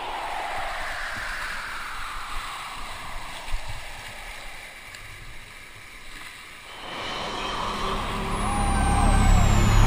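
Rushing river whitewater, a steady hiss of water. Electronic music fades out at the start and swells back in near the end.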